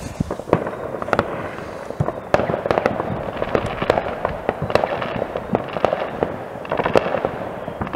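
Many distant fireworks going off across a town at once: an irregular, continuous patter of bangs and pops, with a few sharper reports standing out.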